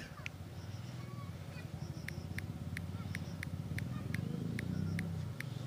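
Short, sharp clicks of a smartphone's on-screen keypad as digits are typed and deleted, coming about three a second through the middle, over a low steady hum.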